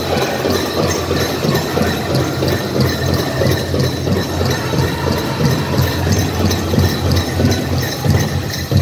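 Powwow drum beaten in a steady, even rhythm, the beat the dancers step to.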